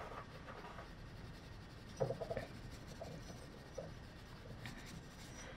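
Coloured pencil scratching faintly on sketchbook paper as fur is shaded in, with a brief soft thump about two seconds in.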